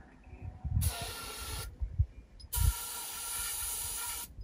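Two bursts of hissing, the first about a second long and the second nearly two seconds, each starting with a low thump.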